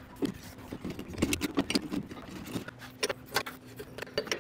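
Light metallic clinks and knocks as a steel engine-mount bracket with its new rubber mount is fitted back into place on the engine and chassis: many short impacts, irregularly spaced. A faint steady hum lies underneath.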